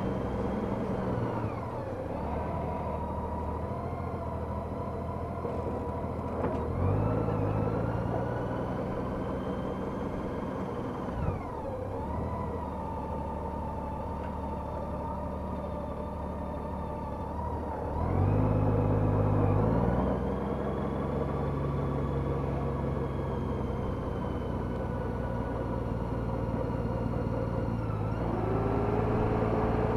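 Honda F6B motorcycle's flat-six engine running on the road. Its pitch steps up as it accelerates about seven seconds in and again at about eighteen seconds, each time holding steady afterwards.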